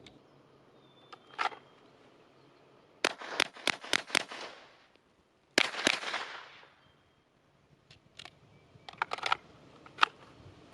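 Glock 17L 9mm pistol firing a quick string of about six shots, then two more shots close together about a second and a half later, these trailing off in an echo. Fainter pops follow near the end.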